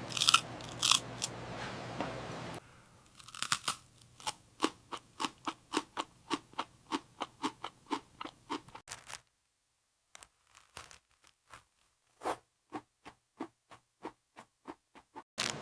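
Someone biting into and chewing crunchy fried fast food, with crisp crunches about three a second for several seconds. Then comes a pause of about three seconds, followed by a few more scattered crunches.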